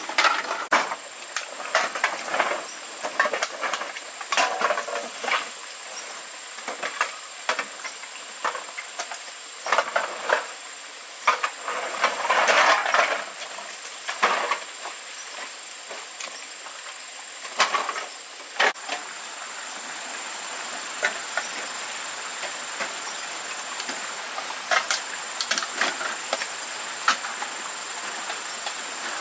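Irregular knocks, clatters and rustling as objects are handled, over a steady thin high whine. From about two-thirds of the way in, the knocks thin out into a steady hiss.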